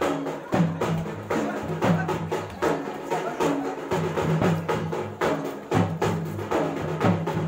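Music with a steady drum beat, about one and a half strokes a second.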